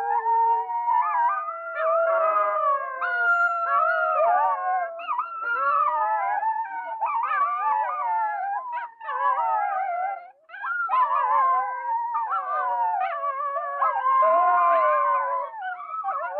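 Wolves howling together: several long, overlapping howls that glide up and down in pitch, with a short break about ten seconds in.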